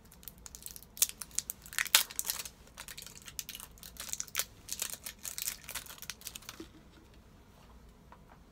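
Plastic battery packaging being torn open and crinkled by hand: a run of sharp crackles and rustles starting about a second in and stopping about two-thirds of the way through.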